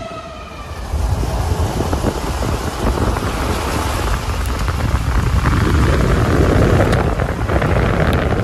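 Strong wind buffeting the microphone: a loud low rumble with hiss that comes in about a second in and builds. A wailing tornado siren dies away at the very start.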